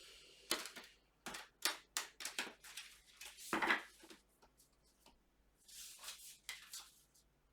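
Tarot cards being handled: an irregular run of sharp papery snaps and clicks with a few brushing swishes of card against card.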